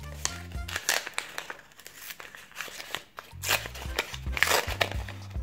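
Paper crinkling and rustling as a small folded paper packet is opened by hand, in a few bursts, about a second in and again near the end, over background music with low bass notes.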